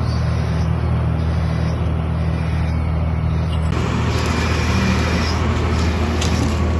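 Heavy diesel engine of a wheel loader running steadily at a low, even pitch while it clears rubble. A little over three and a half seconds in, the sound turns brighter and hissier.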